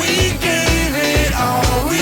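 Background pop song: a singing voice over a steady drum beat.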